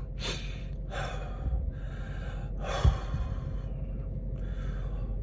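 A man breathing audibly into a close microphone during a pause in his speech: several noisy in- and out-breaths, with one short low thump about three seconds in.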